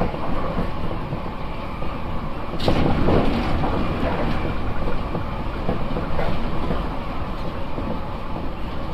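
Nankai Airport Express train running at speed, heard from inside the car: a steady rumble of wheels on rail with the rush of travel. About three seconds in, the noise briefly grows louder for around a second.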